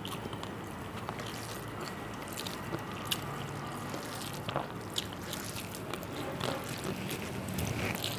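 A person eating panta bhat, soaked rice, with fried vegetables and fish: scattered soft clicks and smacks of eating and chewing over a steady low hum.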